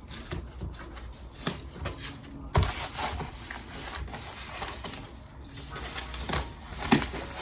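Handling of packaging while an order is packed and a mailer sealed: rustling and rubbing, with a few light knocks and taps, the sharpest about two and a half seconds in and twice near the end.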